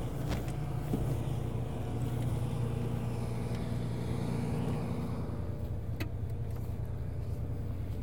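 Claas Lexion 730 combine's diesel engine idling steadily, a low even hum. A few short clicks come through as boots climb the machine's ladder steps.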